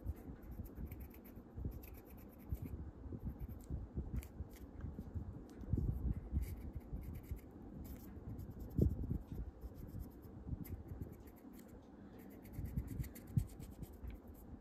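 Felt-tip marker nib rubbing and scratching over a soft plastic action-figure collar as it is coloured, with soft handling rustle and small clicks. A louder knock comes about nine seconds in.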